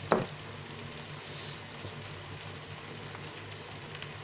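Stew in a frying pan sizzling steadily, with a low hum underneath. A single sharp knock with a short ring, like a utensil striking the pan, comes a fraction of a second in.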